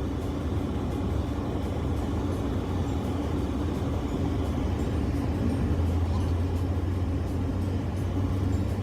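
Vehicle engine and road noise while driving: a steady low hum that grows a little heavier about six seconds in.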